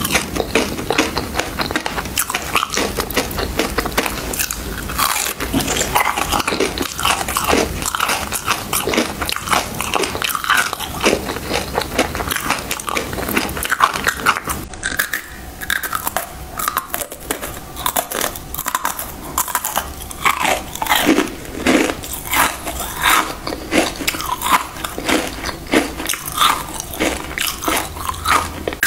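A person repeatedly biting and crunching through flavoured ice, with chewing between bites.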